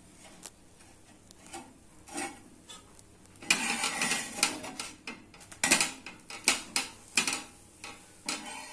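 Steel spatula scraping and tapping against a dosa tawa as a crisp dosa is turned and worked on it: a few light scrapes, a longer scrape about three and a half seconds in, then several sharp metal clinks between about five and a half and seven and a half seconds.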